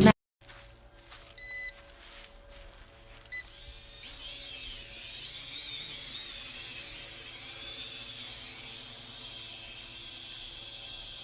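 Two short electronic beeps from a mini quadcopter drone and its remote. About four seconds in, the small propellers start up into a steady high whir that wavers slightly in pitch.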